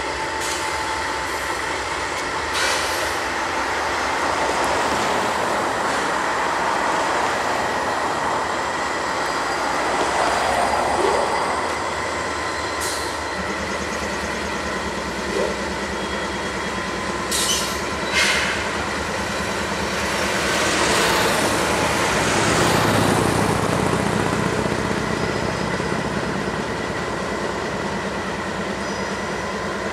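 A pair of GE AC4400CW diesel locomotives switching ore cars on the dock: a steady rumble of engines and rolling cars with a thin wheel squeal and a few sharp clanks. The low engine hum grows stronger from about halfway and swells near two-thirds through.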